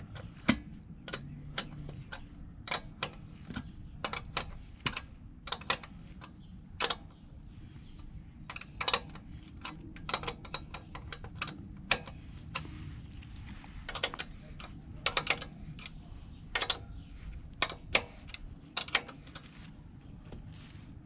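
Ratchet wrench clicking in short, irregular strokes, sometimes two clicks in quick succession, as the motorcycle's rear-axle chain adjusters are tightened to set chain slack.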